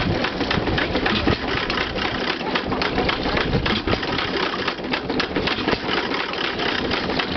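Brownwall air-cooled stationary engine running steadily and belt-driving a Blake three-cylinder piston water pump, with a fast, even mechanical clatter.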